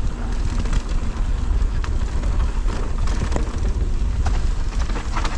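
Wind buffeting the microphone while riding a mountain bike down a dirt trail, over steady tyre noise on dirt. Scattered short clicks and rattles come from the bike over rough ground.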